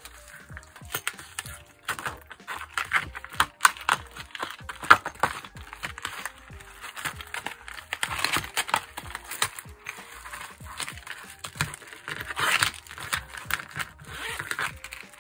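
Plastic sheet and clear vinyl pouch crinkling and crackling as they are handled and pressed into place, in quick irregular bursts, loudest around the middle and again near the end. Soft background music with held notes plays underneath.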